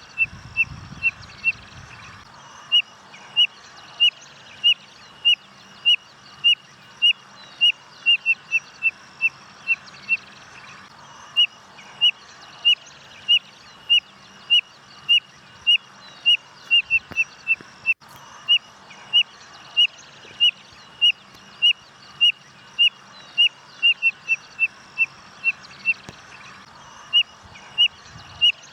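Spotted nothura (codorna-amarela) singing: a long series of short, high whistled notes, about two a second. The notes come in runs that quicken into quick clusters a few times and break off briefly twice before starting again.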